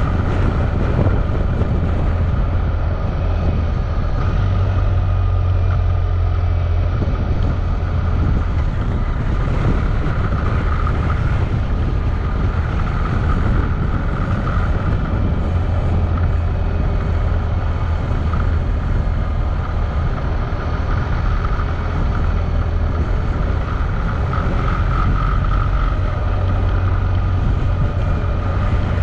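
Motorcycle engine running steadily under way, with wind noise on a bike-mounted action camera's microphone.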